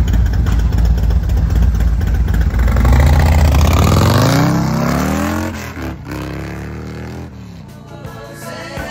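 Harley-Davidson Road Glide's 131 cubic inch Stage 4 V-twin, running through Bassani headers, pulling away: a heavy rumble, then the engine note rises in pitch as it accelerates, dips at a gear change about five and a half seconds in, and fades as the bike rides off.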